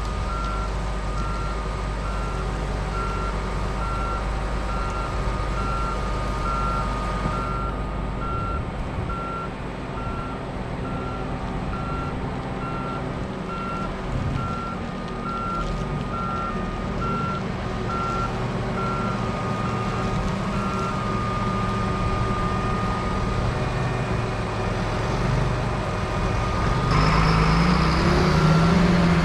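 Backup alarm of reversing farm machinery beeping steadily over a running diesel engine; the beeping stops about two-thirds of the way through. Near the end the engine gets louder and rises in pitch as it revs up.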